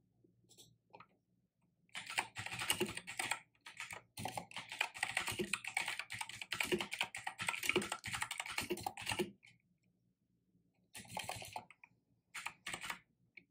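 Typing on a computer keyboard: a fast run of keystrokes from about two to nine seconds in, with a brief pause, then two short bursts of typing near the end.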